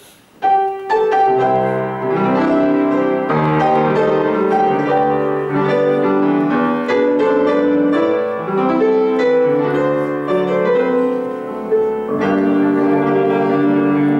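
Piano playing the introduction to a Russian romance, beginning about half a second in with a run of separate notes over sustained chords.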